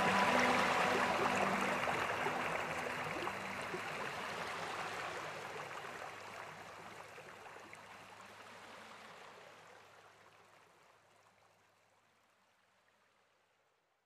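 Shallow stream rippling and splashing over rocks, an even wash of running water that fades out gradually until it is gone a couple of seconds before the end. The last sustained notes of soft background music die away in the first two seconds.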